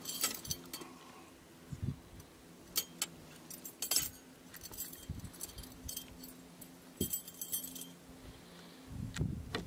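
Light metallic clinks and rattles in irregular clusters as fishing tackle is worked free of a small sockeye salmon lying in a rubber-mesh landing net with a metal frame.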